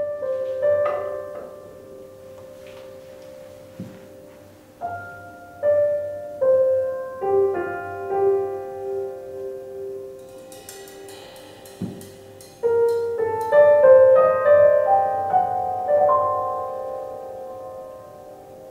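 Recorded piano music played back over a pair of floor-standing hi-fi loudspeakers in a bare room: struck piano notes and chords ringing out, with light percussion and a quick run of high cymbal strokes about ten seconds in.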